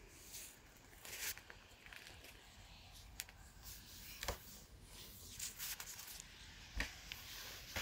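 Faint rustling of blankets and bedding, with a few soft taps and scrapes of handling noise, strongest about four and a half seconds in and near the end.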